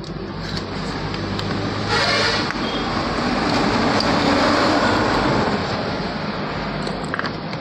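A passing vehicle's noise swelling up about two seconds in and fading away near the end.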